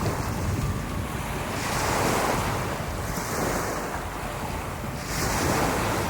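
Surf breaking on a sandy beach, with two waves rushing in, one about two seconds in and another near the end, over steady wind buffeting the microphone.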